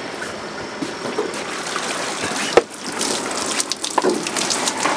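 Water streaming and dripping off a wire crab trap as it is hauled out of the sea and onto the boat, with a sharp knock about halfway through and rattling clicks of the trap afterwards.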